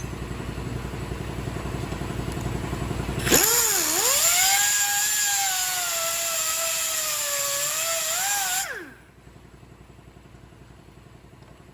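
Power grinder working a fresh weld on a car's steel frame. It starts about three seconds in with a rising whine and a loud gritty hiss, runs for about five seconds with the whine wavering under load, then winds down. A steady low machine hum comes before it.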